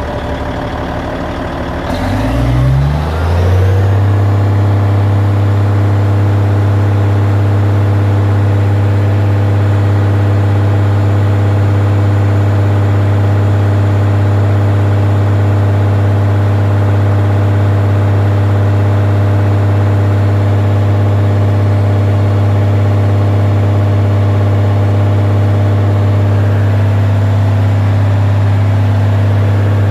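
Caterpillar D9T bulldozer's diesel engine coming up to speed about two seconds in, its pitch rising, then running steadily with a deep, even hum.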